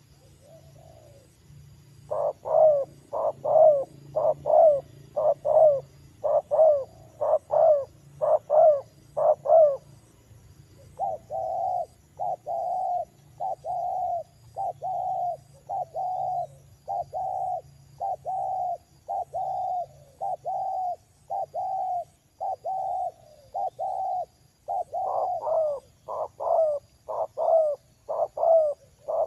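Spotted dove (tekukur) cooing in a long run of repeated notes, about one and a half a second, starting about two seconds in. The notes are loud and sharp at first and again near the end, with a softer, flatter stretch in the middle.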